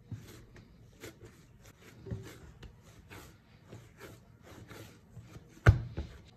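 Brioche dough being mixed and worked: a run of soft rubbing and scraping strokes with light knocks, then one loud thump about five and a half seconds in, followed by a smaller one.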